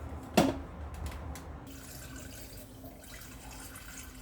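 Fridge water dispenser: a sharp click about half a second in, then water running steadily into a container, drawn off to flush air out of a newly fitted water filter.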